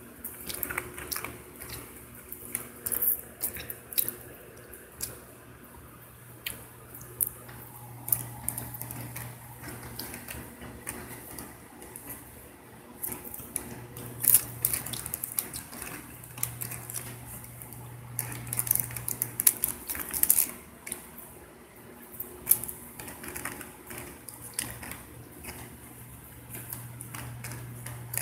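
Irregular clicks and rustles of handling noise close to the microphone, over a steady low hum.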